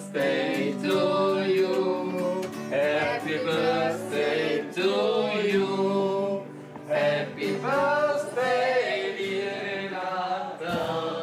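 Men singing a song to an acoustic guitar, in phrases with a short break between them about two-thirds of the way in.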